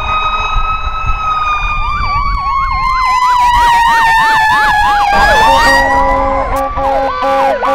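Several fire truck sirens sounding at once: one long siren tone slowly falling in pitch, a fast electronic yelp in the first half, and from about five seconds in a different pulsing siren pattern with a low steady tone, over the rumble of the trucks' engines.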